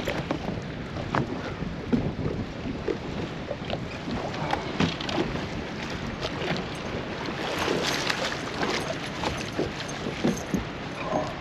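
Choppy water slapping against a boat's hull, with many small splashes and knocks, while wind buffets the microphone.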